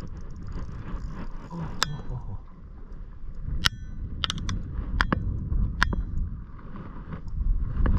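Low wind noise on the microphone, with about five sharp metallic clinks from about two seconds in, some ringing briefly.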